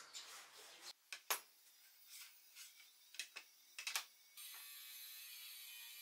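Sparrows chirping briefly. Then solid-wood boards are handled on a workbench: several sharp knocks and clicks of wood on wood, the loudest about a second and a half in. From about four and a half seconds comes a steady dry rubbing of wood against wood.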